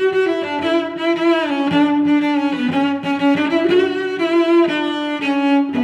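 Background music led by bowed strings, playing a slow melody of long held notes that change every second or so.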